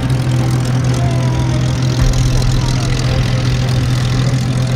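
Hawker Hurricane's Rolls-Royce Merlin V12 engine idling steadily as the fighter taxis, a constant low drone.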